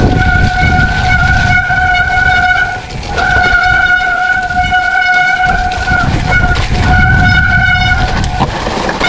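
Mountain bike disc brakes squealing in a loud, steady high tone while braking down a wet, muddy trail, the squeal breaking off briefly a few times as the brakes ease and stopping near the end. Under it, a rough rumble of tyres on the rutted dirt and wind on the microphone.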